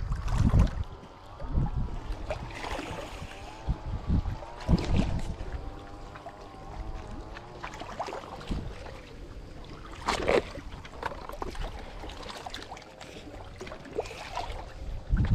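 A wavering, engine-like drone, as from a boat motor, under gusts of wind rumbling on the microphone, with a few sharp noisy bursts, the loudest about ten seconds in.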